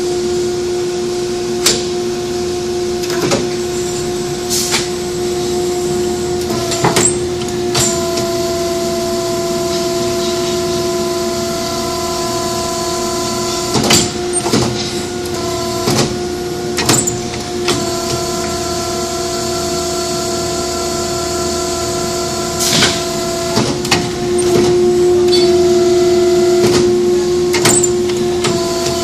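CNC push-bending machine working 25 mm metal pipe: a steady machine hum with a whine over it, its tones shifting several times as the machine changes motion. Sharp clicks and short hissing bursts break in at irregular moments.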